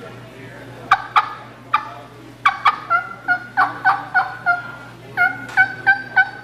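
Hen turkey calling on a mouth call: a few sharp clucks about a second in, then two runs of hard hen yelps, each note breaking from high to low. This is the hard yelping and clucking used to call a broken-up flock of adult hens.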